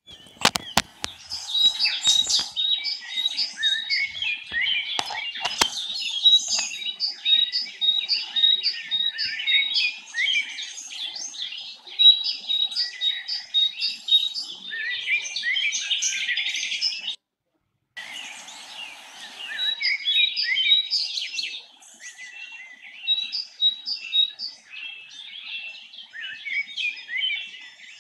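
Many birds chirping and twittering together in a dense, busy chorus, with one high note repeated over and over. A few sharp clicks come in the first few seconds, and the sound cuts out completely for under a second about 17 seconds in.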